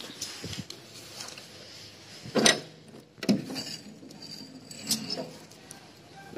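Curtains being pushed aside by hand: fabric rustling with a few sharp metallic clinks and scrapes, about two and a half seconds in and again near three and five seconds.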